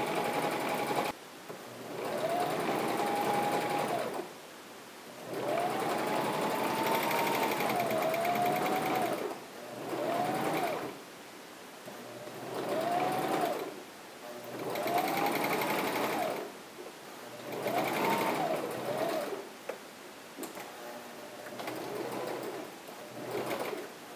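Electric household sewing machine stitching a seam in short runs, about eight of them with brief pauses between. In each run the motor's whine rises as it speeds up, holds for a second or a few, and drops as it stops. The last couple of runs near the end are shorter and softer.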